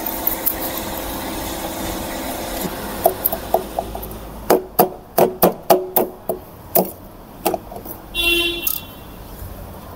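A string of sharp metallic taps and clicks with brief ringing: a snap ring being fitted onto the transfer case input shaft to lock its bearing in place. A short high squeal comes near the end.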